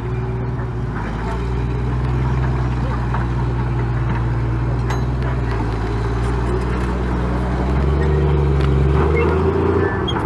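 M5 high-speed tractor's Continental six-cylinder petrol engine pulling hard under load as the tracked tractor climbs a bank towing a field gun, with clatter from its steel tracks. The engine note rises and gets louder about eight seconds in.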